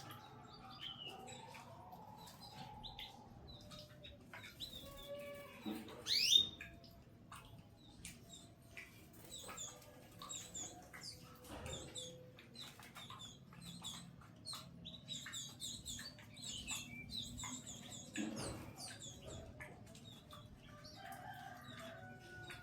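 Canaries chirping: many short high cheeps, coming quickly and repeatedly through the middle, with one loud rising call about six seconds in. The cheeping comes as a parent canary feeds its chick.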